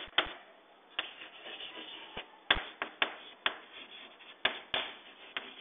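Chalk writing on a blackboard: a string of irregular sharp taps as the chalk strikes the board, with faint scratchy strokes between them.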